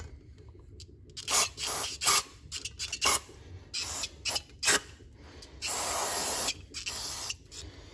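Aerosol brake cleaner sprayed through a straw nozzle into the carbon-fouled valve ports of an aluminum cylinder head, in a series of short bursts with one longer spray of about a second about three-quarters of the way through.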